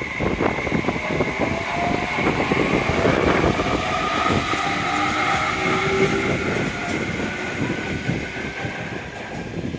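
Train passing close by on JR Kyushu track, its wheels clattering rapidly over the rails, with steady high whining tones and a slowly rising tone above the clatter.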